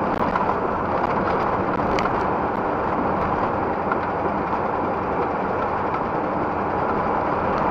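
Steady driving noise of a vehicle on a wet road heard from the dashcam: an engine drone under a constant hiss of tyres on wet asphalt, with a few faint ticks.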